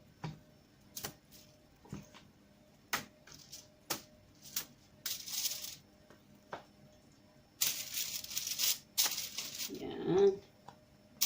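Hands handling chicken wings in a baking dish: scattered light taps and clicks, with two short stretches of rustling about five seconds in and again about eight seconds in.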